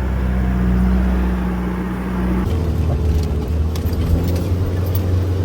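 Mitsubishi Canter 4x4 truck's engine running steadily under load. A little over two seconds in, the engine note changes and sharp clicks and knocks begin.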